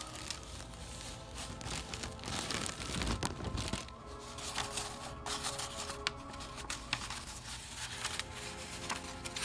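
Plastic wrapping and a rolled sheet of paper crinkling and rustling as they are unwrapped and unrolled by hand, loudest about three seconds in. Quiet background music plays along with it.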